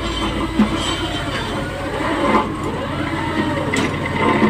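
Steady drone of a fishing boat's engines and deck machinery, with a few short knocks from work on deck.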